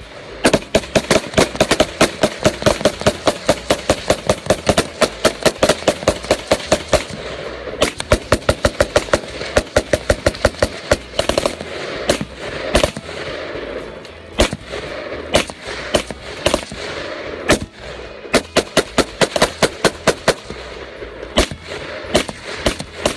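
Several AR-15 rifles firing semi-automatic at once, the shots overlapping in a rapid, dense string for about the first eleven seconds, then thinning out to scattered single shots and short strings.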